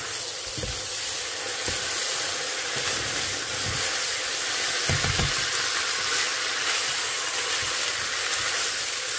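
Basmati rice, minced meat and mushrooms sizzling in a hot pot as a spoon stirs them, with a few knocks of the spoon against the pot. The rice is being fried before the broth goes in, so that it cooks up fluffy.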